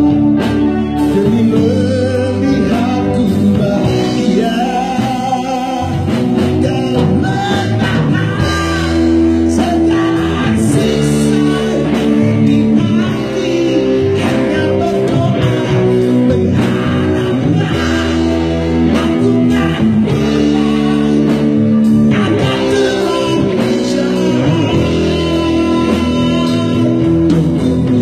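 Live male vocal with a backing band: a man singing into a microphone over electric guitar and a drum kit.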